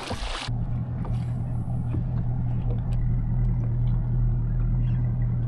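A brief splash as a released fish hits the water, then a bass boat's outboard motor idling with a steady low hum.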